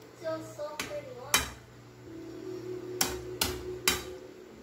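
A metal spoon knocking and clinking against a metal frying pan as chicken in sauce is stirred and scooped: five sharp clinks, the loudest about a second and a half in and a quick group of three near the end.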